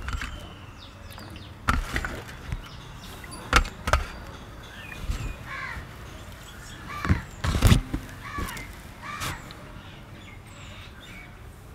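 Stainless-steel plate and bowl knocking and clattering as small fish are handled and tipped into a bowl of water, with the loudest clatter about seven to eight seconds in. Crows caw several times in between.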